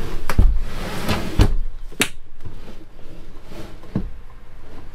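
A heavy EG4 LifePower 24 V 200 Ah battery being shifted and slid across the trailer floor into position: a few knocks and thumps, with a scraping slide in the first second and a sharp knock about two seconds in.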